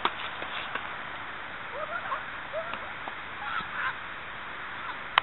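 Geese honking: several short calls from about two seconds in, over a steady hiss of outdoor air. A sharp click comes at the start and another at the very end.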